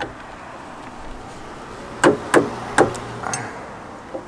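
Three sharp knocks in quick succession about two seconds in: the spanner wrench striking and turning the threaded spring-perch ring of a KW V3 coilover as it is wound down the shock body.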